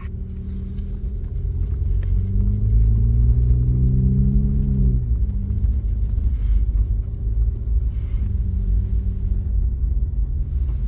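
Jeep engine and drivetrain heard from inside the cab, a steady low rumble at trail-crawling pace. About two seconds in the engine revs up, its pitch climbing for a few seconds, then it falls back to a low pull near the middle.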